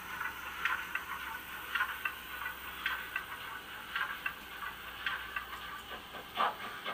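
Doehler & Haass DCC sound decoder in a model LMS Class 8F steam locomotive, running slowly with a goods train. It gives soft, regular beats about once a second, with fainter ones between them.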